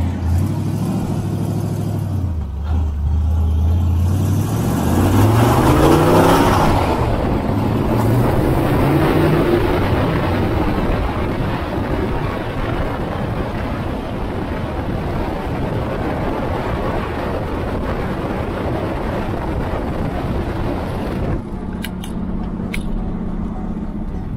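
Rat rod's engine running, then revving up and rising in pitch for several seconds as it accelerates away. After that comes a steady rush of wind and road noise while it drives, with a steadier engine tone near the end.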